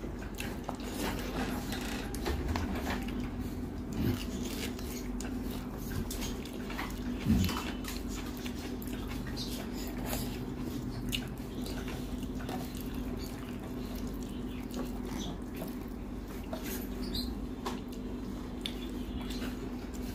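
Hand-eating sounds: fingers squishing rice and curry on a steel plate, with wet chewing and mouth clicks, over a steady low hum. One louder thump comes about seven seconds in.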